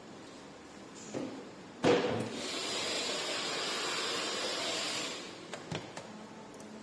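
A sharp knock, then a steady hiss of spray lasting about three seconds, followed by two small clicks.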